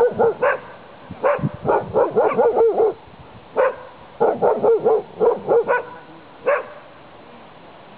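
Saluki play-barking through a fence: quick runs of short, high barks separated by brief pauses.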